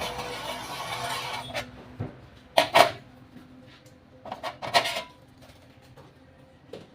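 Metal being rubbed or filed by hand for about a second and a half, followed by several sharp metallic clinks and taps as small metal parts are handled, then quiet.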